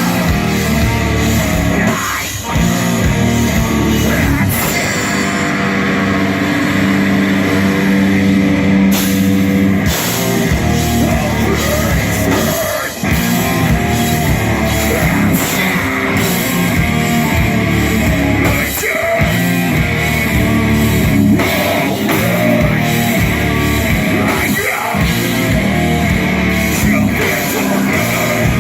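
Heavy metal band playing live at loud volume: distorted electric guitars and a pounding drum kit, with some vocals. About five seconds in the band settles on a held low chord with the cymbals dropping out, then the full band crashes back in around ten seconds in.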